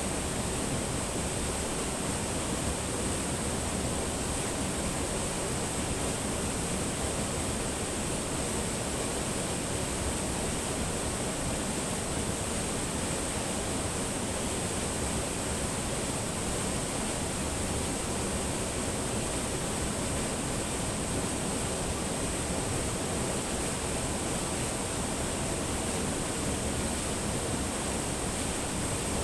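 Spring water flowing over rocks, a steady, unbroken noise of running water.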